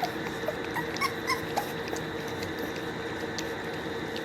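American bully puppies whimpering, a few short high squeaks in the first half, over a steady background hum.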